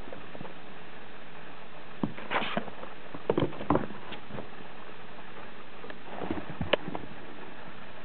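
Kittens scrabbling and pawing at a cardboard box: scattered light taps and scratches on the cardboard, a short rustle about two seconds in, and further clusters of taps in the middle and near the end.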